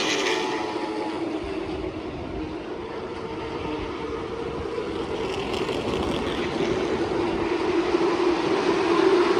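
Stock car engines running as a field of race cars circles the track, a steady drone that eases off a little and then grows louder toward the end as the cars come closer.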